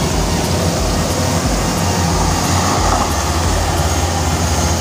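Komatsu PC200 hydraulic excavator's diesel engine running steadily, with a deep, even rumble.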